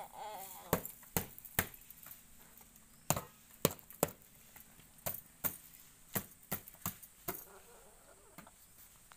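A series of about a dozen sharp clicks at uneven intervals, roughly one or two a second.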